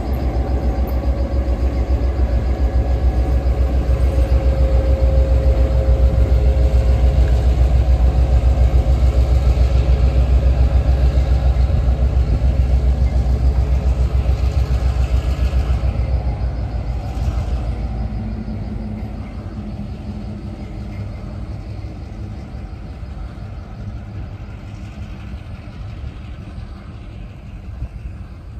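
Diesel locomotive Florida Gulf Coast 1835 running with its passenger train, a loud low rumble of engine and wheels. It is loudest through the first half, then fades steadily as the train moves off down the line.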